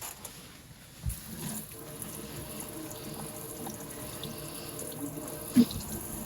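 Water running into a sink steadily for several seconds, starting with a clunk about a second in, with another sharp knock near the end.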